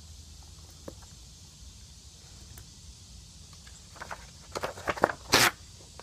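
Faint steady hiss, then from about four seconds in a sheet of paper rustling and crackling as it is handled and lifted, with the loudest rustle near the end.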